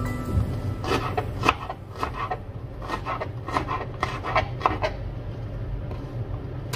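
Kitchen knife chopping red onion on a cutting board: a run of quick, irregular taps starting about a second in and stopping a couple of seconds before the end.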